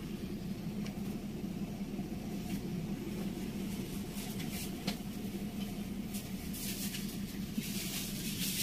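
A steady low machine hum, with a few faint clicks and, in the last two seconds, light rustling.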